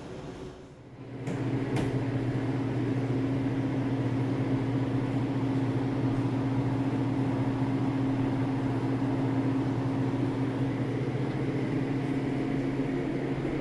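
Whirlpool tub's jet pump switching on about a second in with a click, then running with a steady motor hum over a rushing noise.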